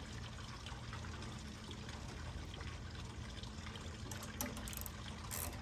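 Gasoline pouring steadily into the fuel tank of a Honda G300 small engine, with a few light clicks near the end.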